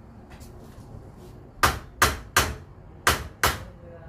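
Hammer blows on metal, striking a submersible pump motor's parts to knock it apart. Five sharp, ringing strikes begin about a second and a half in: three in quick succession, a short pause, then two more.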